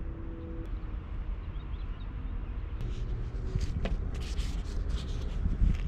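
Paper pages of a visitors' logbook being lifted and turned by hand, rustling in a series of short hisses from about three seconds in, over a steady low rumble.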